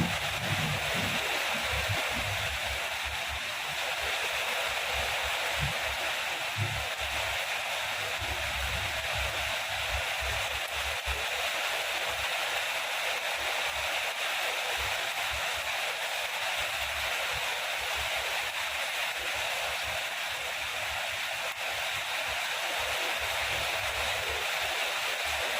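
Steady heavy rain, an even hiss with no let-up, with a low thunder rumble dying away in the first second or two.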